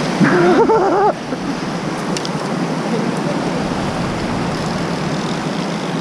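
Fast whitewater rapids rushing steadily. A short wordless vocal sound breaks in during the first second.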